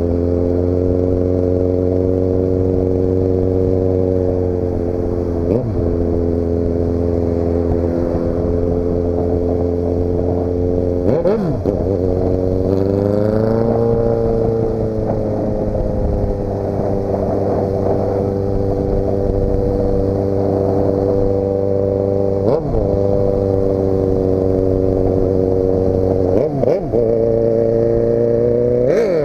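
Motorcycle engine running under way at a steady pitch. Its note dips sharply and recovers several times, and about 12 seconds in it falls and then climbs back over a couple of seconds.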